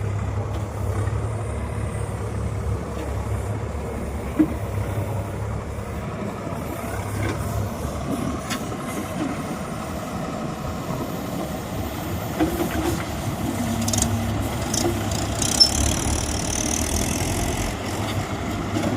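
Swaraj 855 FE tractor's diesel engine running steadily at a low idle-like hum, with a couple of brief sharp clicks.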